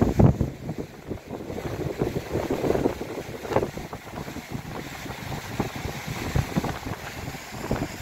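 Muddy floodwater rushing down a swollen river in spate, with gusts of wind buffeting the microphone.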